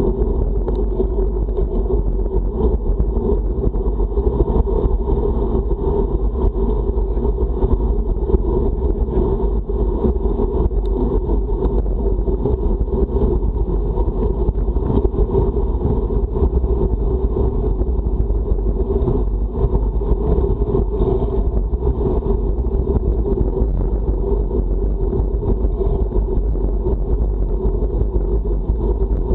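Steady, loud wind rushing over the microphone of a bike-mounted camera during a road-bike ride into a strong headwind.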